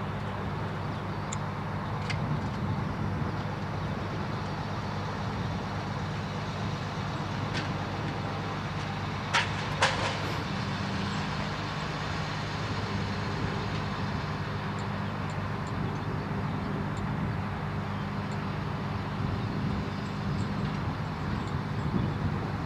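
Mobile crane's diesel engine running steadily at an even speed. A few sharp clanks sound over it, the loudest pair about nine and a half seconds in.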